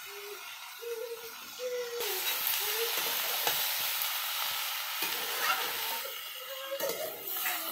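Sliced ivy gourd and potatoes sizzling in hot oil in a metal kadai while being stirred with a metal spatula, with scrapes and knocks against the pan. The sizzle grows loud about two seconds in and eases off about six seconds in.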